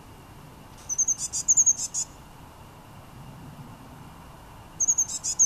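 Eurasian blue tit singing: two short high-pitched song phrases about four seconds apart, each a few thin notes leading into a fast run of louder notes.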